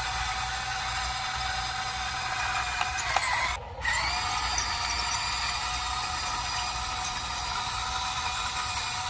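Electric motors and plastic gearboxes of a radio-controlled model construction vehicle whining steadily. The sound cuts out briefly about three and a half seconds in, then picks up again with a short rising whine.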